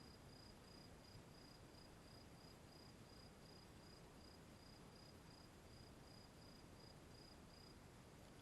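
Faint, high, evenly pulsed insect chirping over near silence; the chirping stops near the end.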